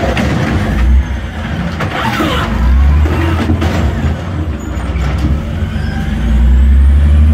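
Automated side-loader garbage truck emptying a wheeled bin: its diesel engine rumbles and swells as the hydraulic arm lifts, tips and lowers the bin, with a few sharp knocks as the bin is shaken out and set back down.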